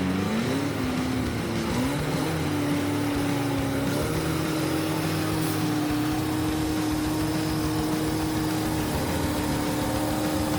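Heavy log truck's engine running under load: its pitch wavers and climbs in steps over the first few seconds, then holds steady.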